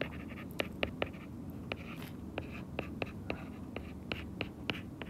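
Stylus tapping and sliding on an iPad's glass screen while words are handwritten: a run of light, sharp clicks, about three a second.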